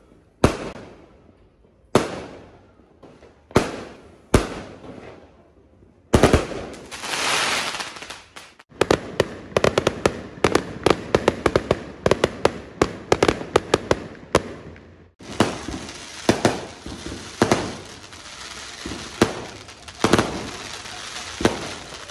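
Fireworks going off: single loud bangs with echoing tails about every second and a half, then a hissing swell and a rapid run of crackling pops. The sound cuts off suddenly about fifteen seconds in, then more bangs and crackles follow.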